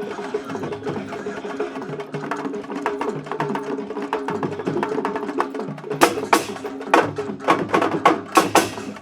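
Sabar drums played in a fast, dense rhythm of sharp slaps, over a steady pitched musical line. About six seconds in, a cluster of louder, sharper strikes cuts through.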